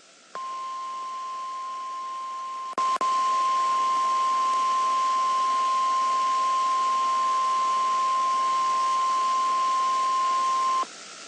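NOAA Weather Radio 1050 Hz warning alarm tone: one long, steady beep over radio static, announcing a warning message. It starts about half a second in, steps louder after a brief click near three seconds, and cuts off sharply near the end, leaving only the hiss.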